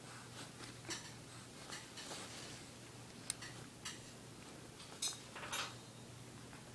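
Faint, scattered small clicks and soft rustles as a baby handles and mouths a soft plush toy, the loudest pair about five seconds in, over a low steady hum.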